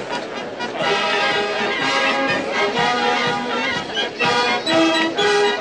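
Brass band music, trumpets and trombones playing a tune.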